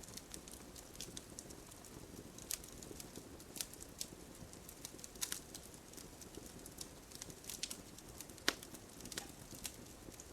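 Campfire burning, with irregular sharp crackles and pops from the burning wood over a low steady hiss; the loudest pop comes about eight and a half seconds in.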